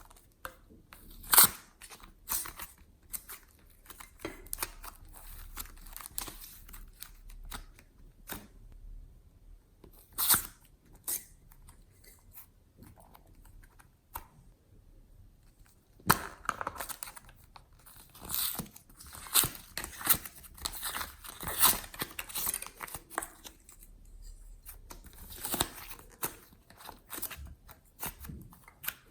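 Hands squeezing, stretching and kneading glossy slime, making irregular sticky clicks, pops and crackles. Sparse at first, with a sharp pop about a second and a half in and another near ten seconds, then denser and busier from about sixteen seconds on.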